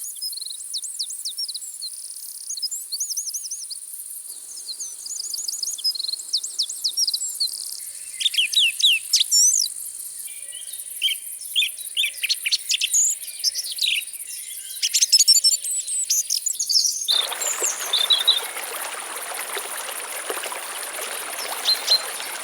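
Many small birds chirping and calling in quick, sweeping notes over a steady high-pitched insect drone. About seventeen seconds in, the steady rush of flowing river water starts suddenly and the bird calls thin out.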